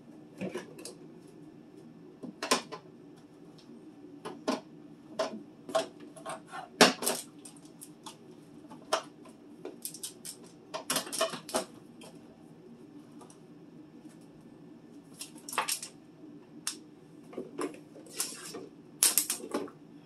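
Food containers and bottles being moved around on refrigerator shelves: irregular knocks and clatter of items set down and shifted, with a steady low hum underneath.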